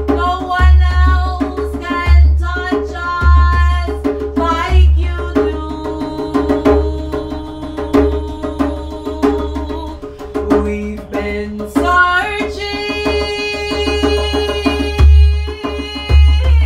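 Singing over djembe accompaniment, with deep bass strokes on the drum recurring about every second and a quarter and lighter strokes between them.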